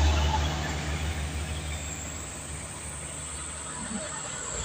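Diesel cargo truck passing close by, its low engine hum fading away in the first two seconds, then the steadier, quieter noise of road traffic with trucks approaching in the distance.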